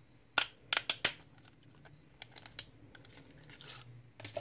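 Handling noise from a plastic-barrelled crystal pen: four sharp clicks and taps within about the first second, fainter ticks a second later, a soft rustle, then more clicks near the end.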